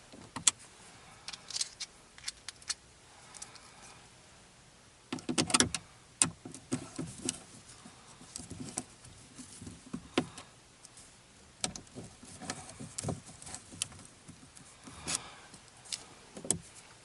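Small metallic clicks and rattles of an Allen key working the little Allen head bolts of a metal vent-clamp phone mount, at irregular moments with a denser cluster about five seconds in.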